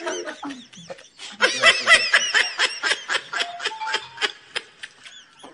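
Hearty, high-pitched laughter in quick repeated bursts. It breaks briefly about a second in, is loudest around two seconds in, then trails off fainter near the end.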